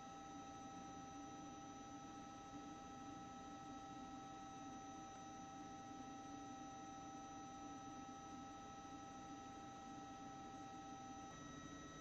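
Near silence: a faint steady electrical hum and hiss with a few thin steady tones, one of which cuts off near the end.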